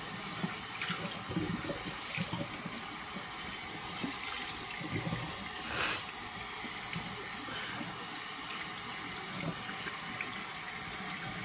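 Bathroom sink tap running cold water steadily, with irregular splashes and a brief sharper splash about six seconds in.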